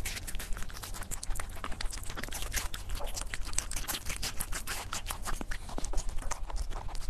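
Rabbit chewing crisp watermelon, close up: a rapid, irregular run of small crunching clicks.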